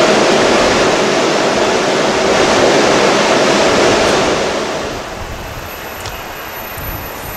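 Steady loud rushing hum from a standing SEPTA Silverliner V electric commuter car's onboard equipment. About five seconds in it drops away to a much quieter rail-side background with a faint high whine, as an Amtrak train hauled by an ACS-64 electric locomotive approaches in the distance.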